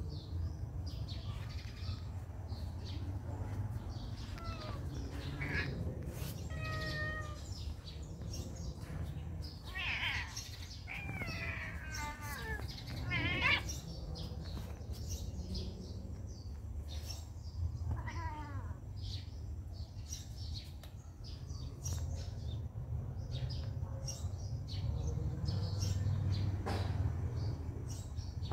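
Cats meowing several times: a cluster of wavering meows around the middle and another meow a few seconds later, over a steady low rumble.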